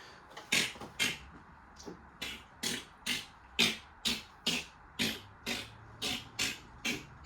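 A hand tool rasping against material in steady back-and-forth strokes, about two a second, throwing up dust as it cuts or scrapes.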